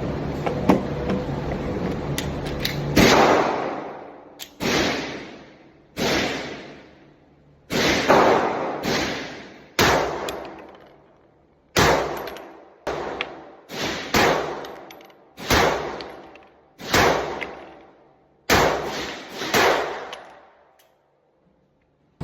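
Firearm shots, about fourteen of them fired one to two seconds apart at an uneven pace, each a sharp crack followed by a long echoing decay.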